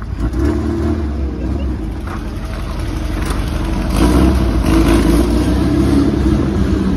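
Air-cooled flat-four engine of a 1967 Volkswagen Beetle Baja bug running hard, getting louder about four seconds in as it revs up, echoing in a concrete parking garage.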